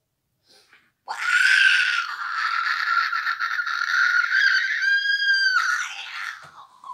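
A loud, high-pitched, rasping scream held for about five seconds, ending in a clearer held note before it cuts off suddenly.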